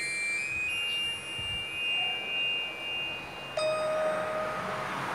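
Electronic chime-like notes from a phone's piano app. A high note is held for about three seconds, with a slightly higher note joining it. A lower note starts abruptly about three and a half seconds in.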